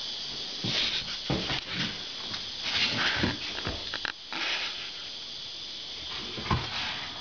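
Steady hiss with scattered rustles and light knocks from a handheld camera being moved about and bumped, with a sharper knock about six and a half seconds in.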